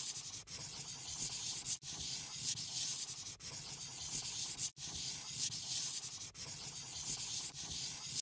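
A colouring app's scratchy rubbing brush sound effect plays while a colour is painted on. It is a steady high hiss, broken by short gaps every second or so.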